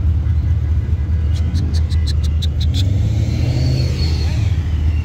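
A car engine rumbling low and steady as the car drives slowly past at low revs. A quick run of high clicks comes about a second and a half in.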